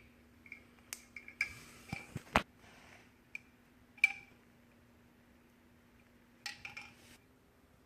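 Scattered light clicks and clinks with a short scrape of hand tools working on a plastic washing-machine outlet box, the sharpest click about two and a half seconds in and a small cluster near the end.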